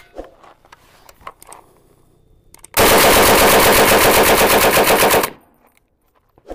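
Automatic gunfire from a Heckler & Koch-pattern firearm: a single sharp crack at the start, then a couple of seconds later one sustained burst of rapid fire lasting about two and a half seconds.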